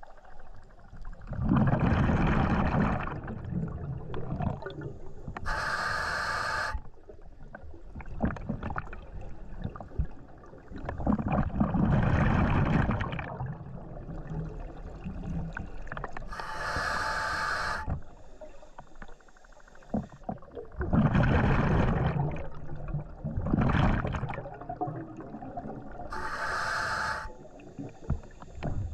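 A scuba diver breathing through a regulator, three breaths about ten seconds apart. Each breath has a loud, rumbling rush of exhaled bubbles and, a few seconds later, a shorter, higher-pitched hiss from the regulator on the inhale.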